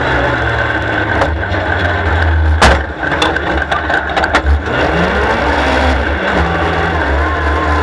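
Superstox race car's engine running at low revs, heard from inside the cockpit, with the car rattling and one sharp knock about two and a half seconds in. The engine note rises briefly about five seconds in.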